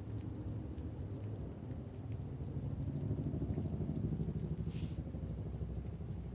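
Freshly pressure-washed concrete crackling like Rice Krispies: a steady fizz of many tiny pops coming from along the small cracks in the wet slab.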